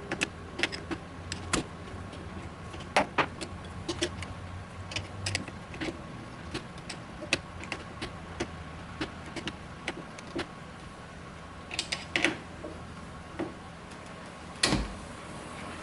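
Irregular clicks, taps and knocks of hand tools and parts being handled, over a steady faint hum. The loudest knock comes near the end.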